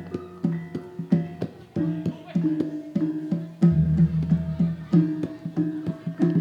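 Javanese gamelan playing instrumentally, led by quick kendang hand-drum strokes whose pitch bends, over ringing bronze tones. A deep, sustained gong-like tone comes in a little past halfway.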